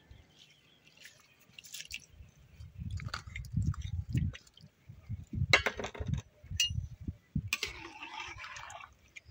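Moong dal tipped from a bowl into a large aluminium pan of hot water, splashing and trickling in. Then a few sharp clinks of metal on the pan, and a metal ladle swirling the dal through the water.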